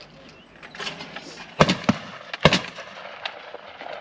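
Two loud, sharp shotgun bangs just under a second apart, from .410 bolt-action shotguns at a clay shoot.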